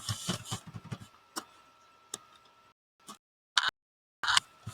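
Computer keyboard typing: a quick run of keystrokes, then a few single presses spaced out.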